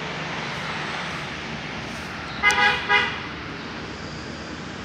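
A vehicle horn toots twice in quick succession about two and a half seconds in, over a steady background noise.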